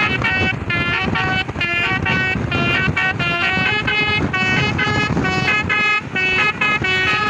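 A bus's Basuri telolet musical air horn playing a tune of short notes that change pitch several times a second, over the rumble of the bus and road.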